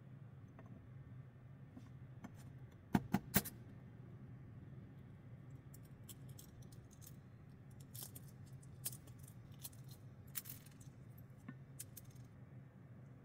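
A boiled egg tapped three times against a metal frying pan about three seconds in, then the small, scattered crackles of its shell being cracked and picked off by hand. A steady low hum runs underneath.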